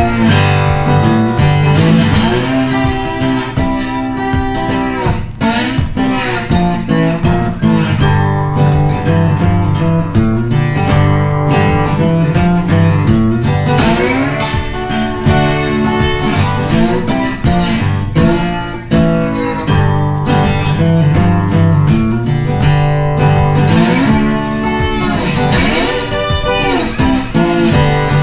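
Background music led by a plucked guitar, playing throughout.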